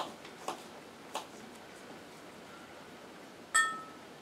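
A few light knife taps while pears are diced by hand. About three and a half seconds in comes a single sharp clink of glass that rings briefly, a glass measuring cup or bowl being struck.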